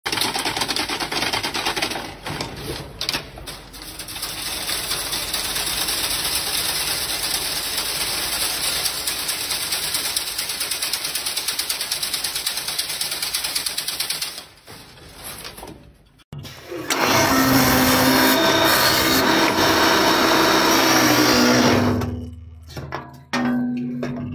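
Wire-mesh weaving machine running with a fast, even metallic clatter. After a short break, another machine runs with a steady low hum that breaks up near the end.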